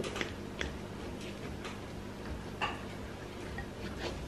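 Knife cutting through the baked crust of a tart in a ceramic pie dish: a few faint, irregularly spaced ticks and crunches, with one short scrape a bit past halfway, over a low steady hum.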